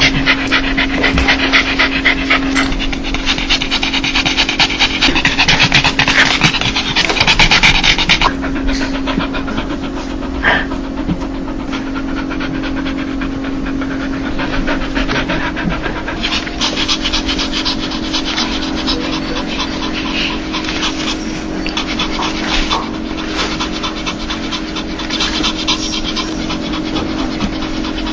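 Dog panting rapidly in quick breathy huffs, the 'laughing' play pant of a happy, excited dog, over a steady low hum. The panting is strongest in the first third and a little softer after about 8 seconds.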